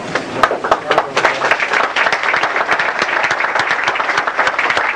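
Audience applauding: a few separate claps at first, quickly filling in to steady applause.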